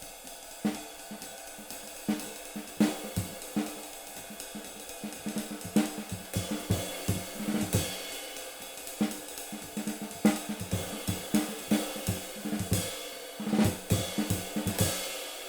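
Drum kit played at a fast swing tempo, with a ride cymbal fitted with eight rivets buzzing in a constant sizzle under quick drum strikes. At this tempo the rivet sizzle overwhelms the clarity of the pattern.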